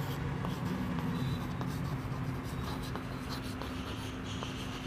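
Chalk writing on a blackboard: light taps and scratches of the chalk as a word is written out, over a steady low room hum.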